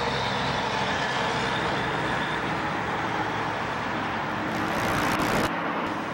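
Highway traffic noise with a truck passing. The sound swells about four and a half seconds in, then drops off suddenly a second later.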